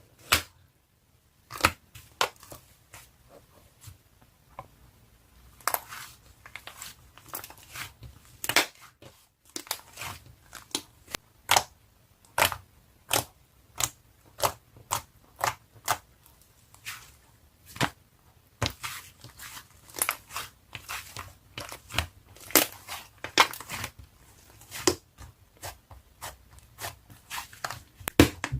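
Irregular sharp crackles and crunches, one to three a second, close to the microphone, growing denser in the second half.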